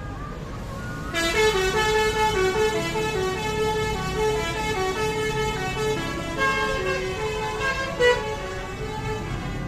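Bus 'telolet' musical horn playing a quick tune of stepped notes, starting about a second in, over the low rumble of the bus's engine.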